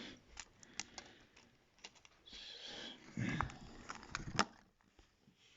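Light clicks and taps of small tablet parts being handled and turned over during a teardown, with a sniff about two seconds in and a louder rustle of handling around three and a half seconds.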